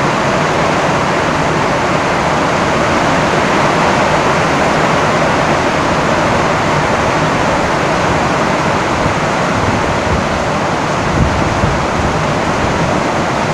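Heavy rain drumming steadily on a tin roof, a loud, even hiss, with a low rumble coming in near the end.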